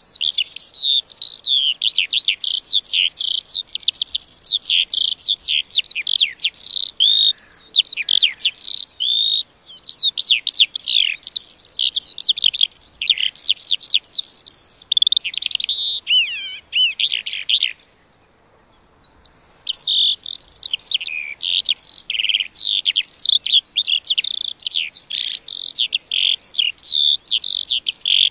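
A lark singing a long, rapid, unbroken stream of warbled, trilled and slurred high notes, stopping for about a second and a half a little past the middle before starting again.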